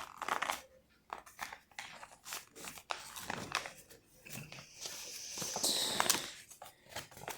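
A sheet of paper being folded and creased by hand: intermittent rustling and crinkling with small taps and scrapes, louder for a couple of seconds past the middle.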